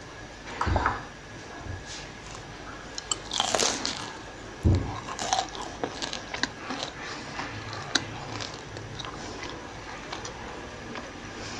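A person biting into a crispy fried potato-and-onion pakora and chewing it: crisp crunches, the loudest a few seconds in, then lighter crackling chews.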